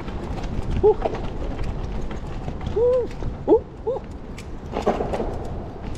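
Electric scooter jolting over cobbles and loose bricks: a continuous low rumble with rattling clicks from the frame and suspension. Over it come several short rising-and-falling 'oh' exclamations from the rider.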